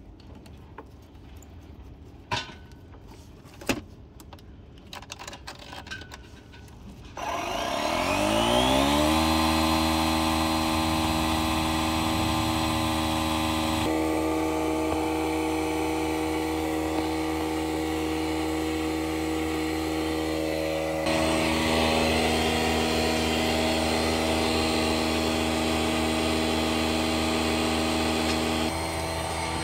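A few sharp clicks as the hose chuck is fitted to the tyre valve. About seven seconds in, a DeWalt portable tyre inflator's compressor starts, spins up with a rising whine, and then runs steadily, pumping air into a flat tyre. Its level steps up and down a few times.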